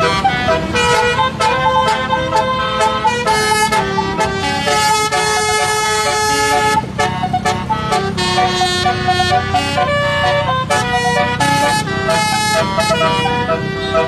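Basuri (telolet) multi-trumpet horn on a car playing a song melody note after note, with a brief break about seven seconds in, over a low steady rumble.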